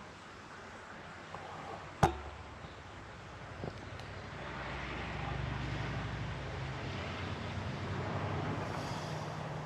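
A sharp click about two seconds in, then a steady whir that builds from about halfway: a spoked Harley-Davidson Softail front wheel spinning on a truing stand.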